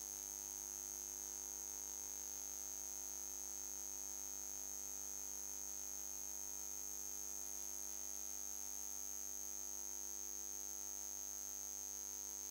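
Faint, steady electronic background noise: a constant high-pitched whine over a low hiss, unchanging throughout, with no other sound.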